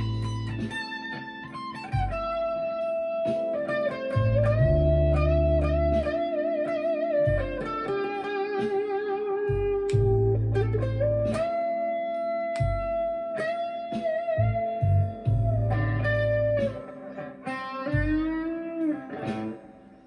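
Chapman ML1 electric guitar played through a Marshall MG15CFX amp with a Behringer vintage overdrive pedal. It plays single-note lead lines with sustained, vibrato and bent notes, broken up by low chords or riffs every few seconds.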